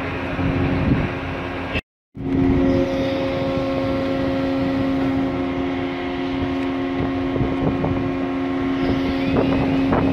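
Steady drone of ship's machinery in a harbour, with a few held humming tones over a rushing noise. The sound cuts out for a moment about two seconds in.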